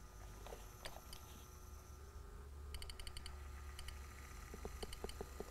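OO gauge 08 shunter model locomotive moving slowly along the track, a faint low hum with scattered light clicks, several close together near the end.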